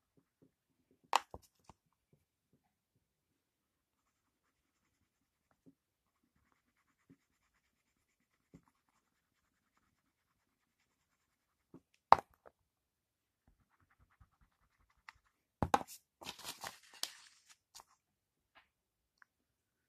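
Coloured pencil work on paper: faint scratching of the lead, broken by a few sharp taps and knocks about a second in and again near the middle. Near the end comes a louder cluster of knocks and rustling.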